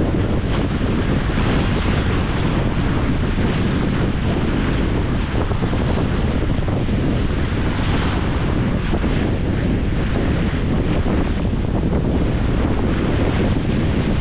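Strong wind buffeting the microphone, with choppy lake waves splashing against a concrete shoreline.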